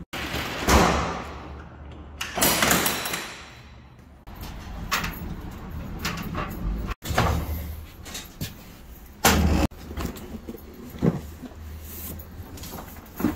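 A loaded hand truck being moved on a metal loading ramp and a wooden truck floor: rolling rumble with several sharp clanks and thumps and a longer rattle about two seconds in.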